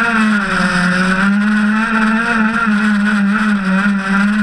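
A stock Zenoah 26PUM two-stroke gas engine in an RC race boat running hard at high revs, heard from on board, over the rush of water and spray. Its pitch sags briefly about half a second in and again near the end, then picks back up.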